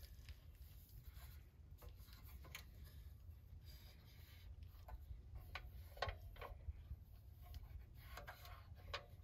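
Faint handling noise from a small Kovea Cupid butane heater being turned over in the hands: light rubbing and a few small clicks, the sharpest about six seconds in and again near the end, over a low steady rumble.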